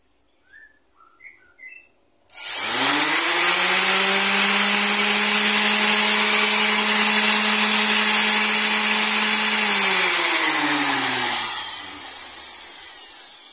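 Ingco RS3208 320-watt orbital sander switched on about two seconds in, its motor spinning up quickly and then running free with no load at a steady high whine, very loud. Near ten seconds it is switched off and winds down, the whine falling in pitch and fading.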